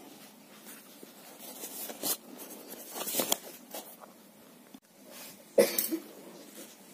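Tissue paper and cloth rustling in irregular bursts as hands handle them, with one short, louder burst about five and a half seconds in.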